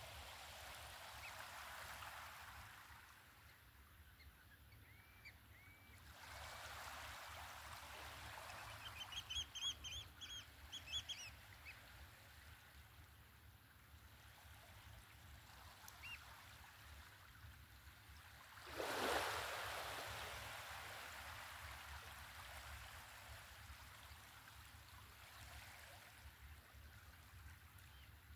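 Faint small waves lapping on the shore of a calm sea, washing in and fading every few seconds, with one stronger wash about two-thirds of the way through. A bird gives a quick burst of short, high calls about ten seconds in.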